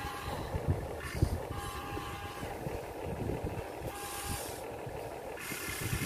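HuiNa 1593 remote-control excavator's electric motors whining in short spurts, starting and stopping several times as the boom and bucket are worked, over a low steady noise.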